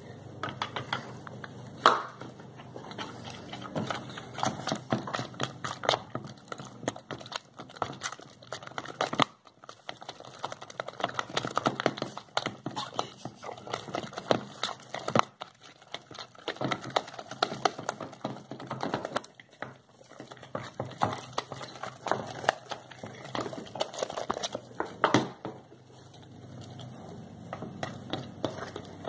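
A hand squishing and kneading blue glue-and-shaving-cream slime in a bowl: a dense run of small irregular clicks and pops that thins out near the end.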